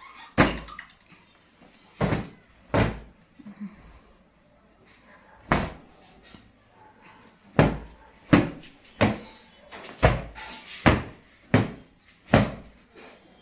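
Sharp snaps and thumps, about eleven at uneven intervals, of fabric sofa throws and cushions being shaken out hard to beat the dust out of them.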